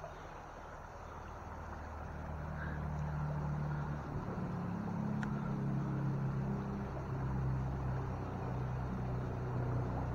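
A motor engine hums steadily, growing louder about two seconds in and changing pitch around four seconds in. Beneath it is the steady rush of the creek's shallow water.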